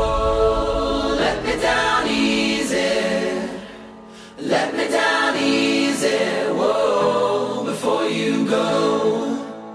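Background music: a song with choir-like singing, dipping briefly about four seconds in before picking up again.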